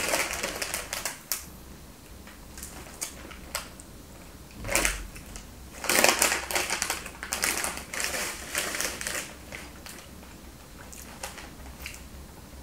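Crunchy snack chips being chewed close to the microphone, mixed with the crinkle of the plastic snack bag, in irregular bursts of crackling.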